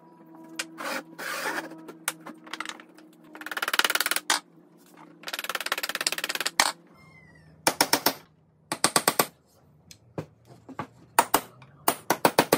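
Claw hammer tapping nails into a pine frame: quick runs of light taps in the first half, then clusters of sharper, separate strikes in the second half.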